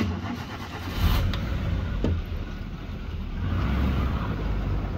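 Safari vehicle driving: engine running under a steady road rumble, which starts abruptly and swells about a second in.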